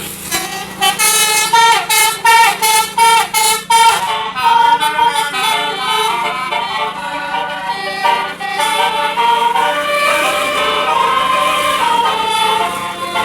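36-note Basuri telolet air horn on a medium bus playing a melody: a run of short, choppy notes for about four seconds, then longer notes stepping up and down. A steady low hum runs underneath.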